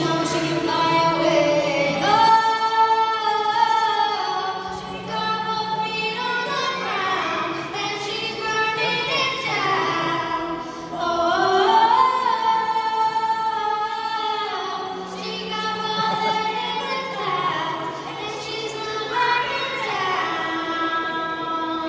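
A young girl singing a pop song solo into a handheld microphone, her voice amplified in a hall, with long sustained notes.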